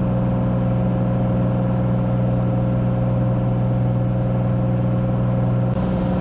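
Cessna 182's six-cylinder piston engine and propeller droning steadily in the climb-out just after takeoff, a low even hum. A faint hiss comes in near the end.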